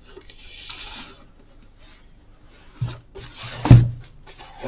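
Cardboard shipping box handled and turned over on a desk, its sides rubbing and scraping against hands and the desk mat, with a thump about three-quarters of the way through.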